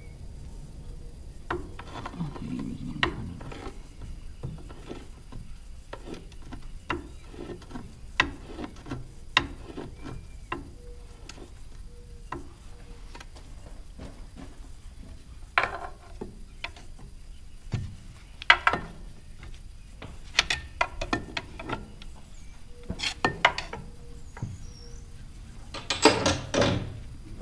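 Hand tools working on metal clutch parts of a stump grinder: irregular clicks, taps and clinks, coming in quick clusters in the second half, with a louder rattle of metal near the end.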